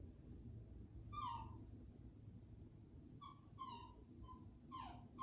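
A crated puppy whining faintly in short high whimpers: one about a second in, then a run of several from about three seconds in, some sliding down in pitch. The whining is an emphatic complaint at being confined.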